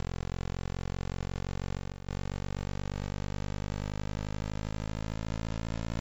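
Radar altimeter echoes from the Huygens probe descending to Titan, turned into audio: a dense, buzzing hum of many evenly spaced tones that slowly rises in pitch, with a brief dropout about two seconds in. The rising echo signal tracks the probe's falling altitude above Titan's surface.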